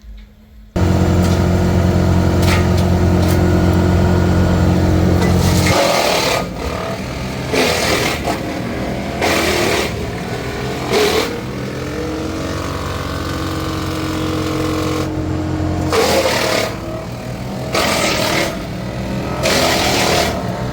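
TP 215 Track woodchipper (59 hp, 8.5-inch capacity) running at speed. From about six seconds in it chips branches fed into it, in repeated loud crackling bursts one to two seconds apart, with a pause in the middle, while the engine keeps running underneath.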